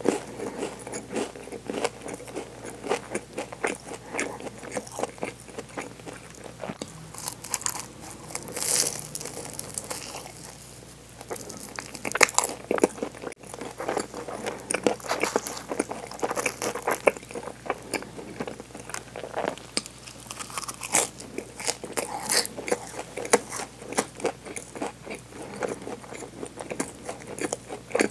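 Biting and chewing a crusty chocolate-filled ring bread, with many quick crackles and crunches of the crust and a short lull partway through; the bread is also torn by hand.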